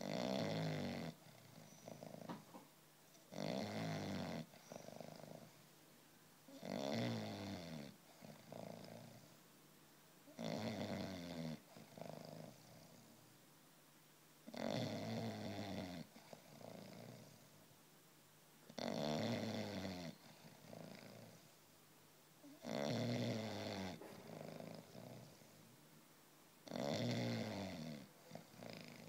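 Five-month-old English bulldog puppy snoring in its sleep: a loud snore about every four seconds, each lasting a second or so, with softer breaths in between.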